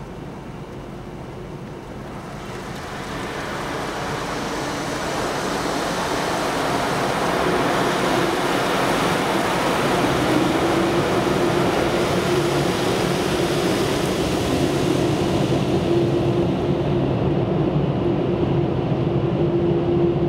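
Automatic car wash machinery and water spray heard from inside the car: a steady rushing noise that grows louder over the first several seconds, with a steady hum joining about seven seconds in and the hiss thinning near the end.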